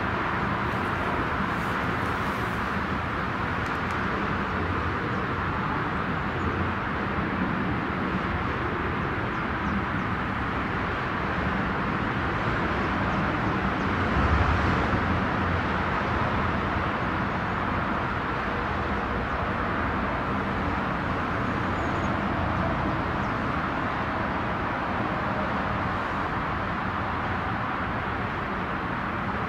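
Steady distant vehicle rumble and hiss, even in level, with a slight swell about halfway through.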